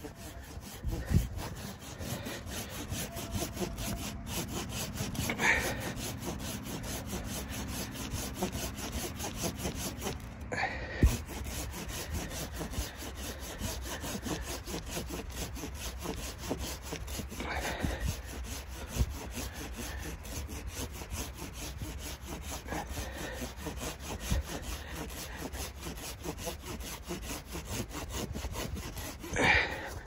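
Hand saw cutting through wood in a steady run of rapid strokes, with a few louder knocks.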